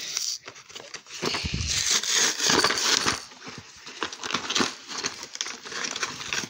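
Plastic and paper toy packaging being torn open and crinkled by hand, in irregular crackles and rustles that are heaviest in the first half.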